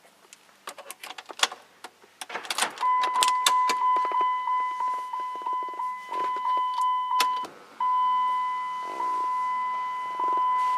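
A few seconds of scattered clicks and small rattles, then a steady high-pitched electronic warning tone that sounds continuously with a brief break in the middle, in the manner of a car's door-open or key-in-ignition chime.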